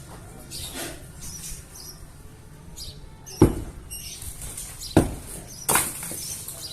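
Blows against a masonry wall being demolished: three sharp impacts, one about halfway and two close together near the end, with lighter scraping noises between them.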